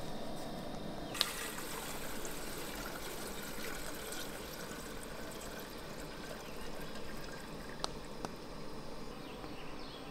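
A thin stream of water trickles steadily into a blue enamel percolator coffee pot, filling it. A few sharp clicks sound about a second in and twice near the end.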